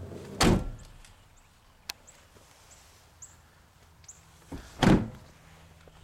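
The doors of a 2011 Dodge Dakota extended-cab pickup are slammed shut twice, about four and a half seconds apart, with a single sharp click between them.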